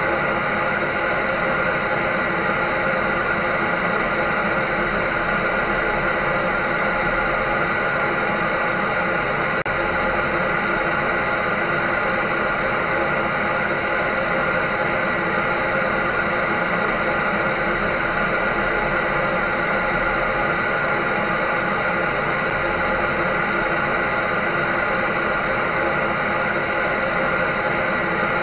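Electric drying machine running steadily: an even rush of air with a constant motor hum and whine, unchanging throughout.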